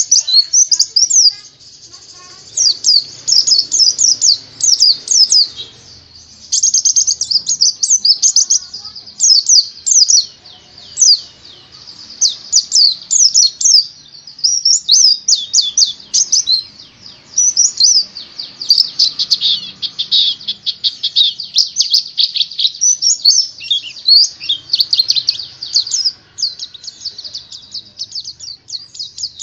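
White-eye (pleci) singing: long, fast twittering phrases of rapid high chirps, broken by short pauses every few seconds.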